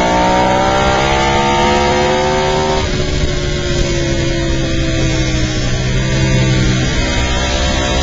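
Onboard sound of a Ducati 1098-series V-twin superbike at racing speed: the revs climb for about three seconds, drop sharply, then fall steadily as the bike slows for a corner.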